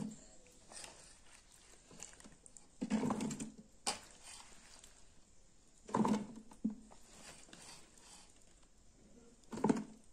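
A metal spoon scooping oily mango pickle into a plastic jar: a few short bursts of soft wet thuds and scraping, a few seconds apart, with some sharp clicks of the spoon against the containers.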